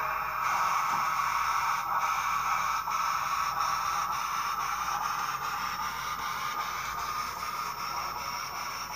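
HO scale Canadian National 2-8-2 Mikado model steam locomotive with a Tsunami2 sound decoder, running with its train: a steady hissing rush that slowly fades as the train moves away.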